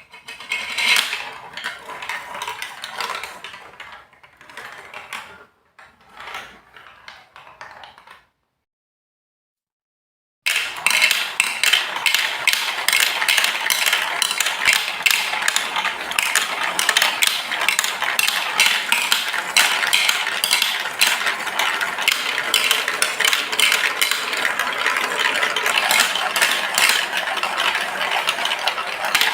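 Marbles rolling and clattering along a Lego Duplo block marble run. It starts with scattered bursts of rattling and, after a brief silent gap, becomes a dense, continuous clatter of many small clicks.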